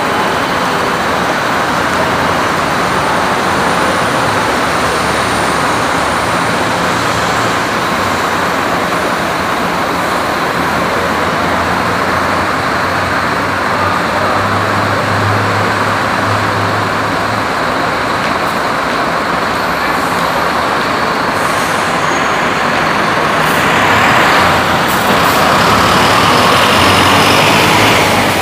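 Caio Apache VIP II city bus on a Mercedes-Benz OF-1722M chassis, its diesel engine running steadily at idle, then getting louder near the end as the bus pulls away and passes close by, over a steady background of traffic noise.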